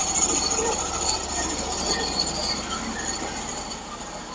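Hud-son portable bandsaw mill running through frozen, knotty hard maple, with a thin high squeal over the mechanical running; the sound gradually falls off.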